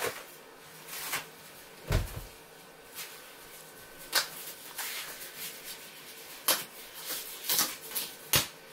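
Black disposable gloves being pulled from their box and worked onto both hands: scattered rustles and a handful of sharp snaps of the thin glove material, with one dull knock about two seconds in.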